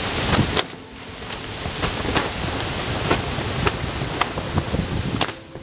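Ash eruption from a volcanic vent heard close up: a steady rushing noise with wind buffeting the microphone, and sharp cracks scattered throughout. The noise drops in level about half a second in, then builds back.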